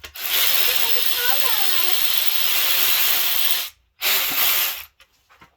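Cordless battery ratchet spinning a bolt out of an engine block: its motor runs steadily for about three and a half seconds, stops briefly, then runs again for about a second. A faint voice is heard during the long run.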